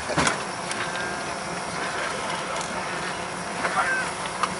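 Boat engine idling at low speed while the boat is turned slowly, heard as a steady hissing drone. A sharp knock comes about a quarter second in, and a few lighter knocks near the end.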